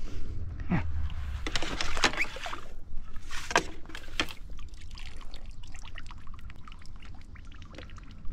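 Water splashing and trickling, with scattered knocks and rustles, as a just-landed fish is handled over the wet landing net and the net is set back down at the water's edge. The louder splashes come in two clusters, about one and a half and three and a half seconds in.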